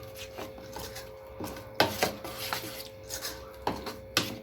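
A spoon clinking and scraping against a bowl as cornflour is spooned in and stirred into a masala paste: irregular knocks and clicks, the sharpest about two seconds in and near the end.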